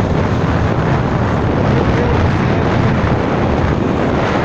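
Steady wind buffeting the microphone on a boat under way, with the boat's running and water rushing past in a continuous loud rumble.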